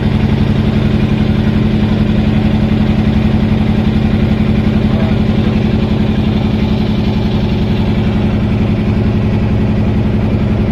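Boat engine running loudly at a steady pace, an unchanging hum with a low rumble beneath.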